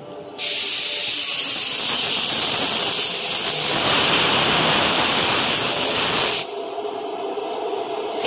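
Compressed air hissing for about six seconds, likely a blow gun clearing dust off a freshly CNC-engraved MDF board. The hiss starts and stops abruptly.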